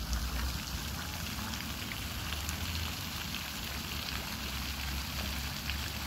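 Water splashing and trickling in a steady, fine patter, with a low rumble underneath.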